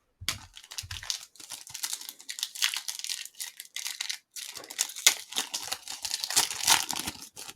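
Plastic wrapper of a trading-card pack crinkling and tearing as it is handled, in rustling stretches broken by short pauses about a second in and about four seconds in.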